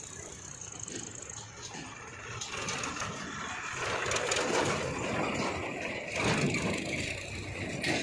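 Powertrac 434 DS tractor's diesel engine running as it drives past pulling a trailer, growing louder as it nears and peaking about halfway through before easing off.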